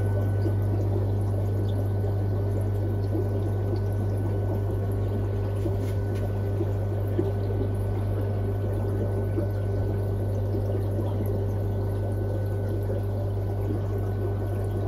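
Aquarium filtration running: water steadily trickling and bubbling over a steady low electric hum.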